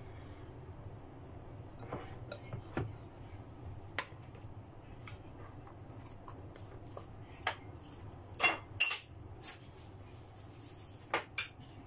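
Metal spoon clinking and scraping against a ceramic mixing bowl, with scattered short clinks and knocks of kitchen things being handled. The loudest pair of knocks comes about eight and a half seconds in, over a faint low hum.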